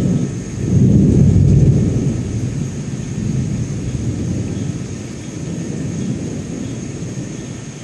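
Rolling thunder: a low rumble that swells about a second in, then slowly dies away.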